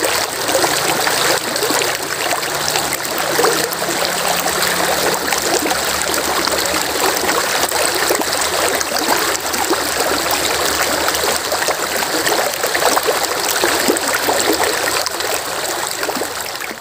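Steady rush of flowing stream water, an even splashing hiss.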